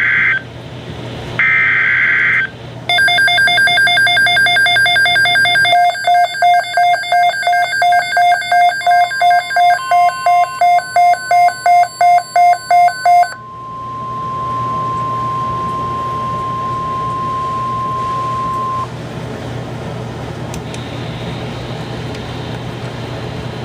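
NOAA Weather Radio alert: the last two bursts of the screeching SAME data header, then a receiver's alarm beeping in quick pulses, then the steady single-pitch weather warning alarm tone for about nine seconds, ending in a low hum of radio static.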